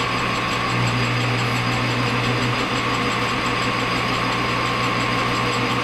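Metal lathe running with its chuck spinning a short piece of round bar stock: a steady mechanical hum that holds an even level, while the work is lined up for center drilling.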